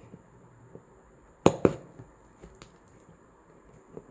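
Two sharp knocks in quick succession about a second and a half in, with a few faint clicks, from a taped cardboard parcel being handled and picked open by hand.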